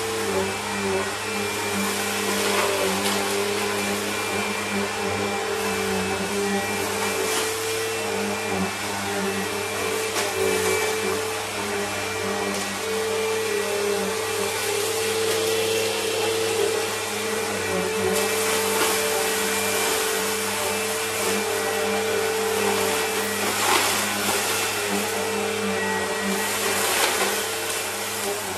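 Bissell bagless upright vacuum cleaner running steadily with a constant whine as it is pushed back and forth over a rug. Every few seconds there are sharp crackles and ticks as crushed food crumbs are sucked up.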